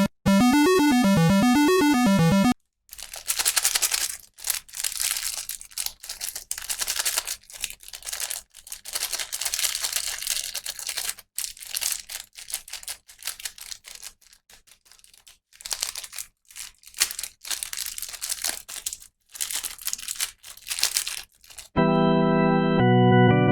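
Plastic packaging crinkling and tearing in irregular bursts with short pauses. This is framed by electronic music: a bouncing synth tune for the first couple of seconds, and organ-like chords starting near the end.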